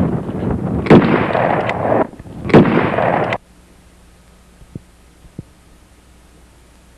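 Gunfire: two loud shots about a second and a half apart over a dense rushing noise, cutting off abruptly about three and a half seconds in to a faint hiss.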